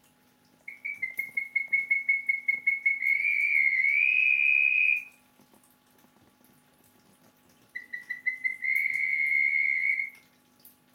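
Male Klappenbach's red-bellied toad (Melanophryniscus klappenbachi) giving its advertisement call twice. Each call starts as quick separate pulses that speed up and merge into a continuous high whistling trill. The first call lasts about four seconds and rises a little in pitch near its end; the second lasts about two and a half seconds.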